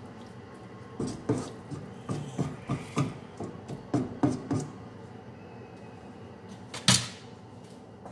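Wooden spoon stirring a thick bean and chorizo sauce in a non-stick wok, a run of soft knocks and scrapes against the pan. Then one sharp knock about seven seconds in.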